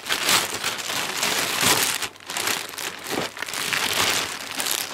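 Clear plastic packaging bag crinkling as it is handled and pulled out of a box, in irregular rustling bursts with brief lulls about two and three seconds in.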